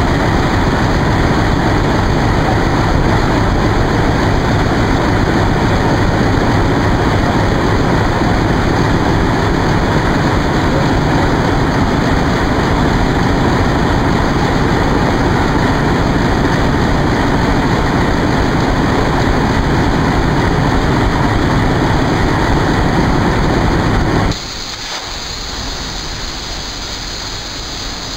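ALCO WDP3A diesel locomotive engine running at a standstill, a loud, steady rumble. About four seconds before the end the sound drops suddenly to a quieter, hissier level.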